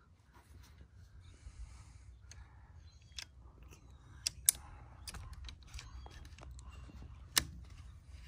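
Faint rustling and soft hissing, broken by a few sharp clicks; the loudest click comes about halfway through and another near the end.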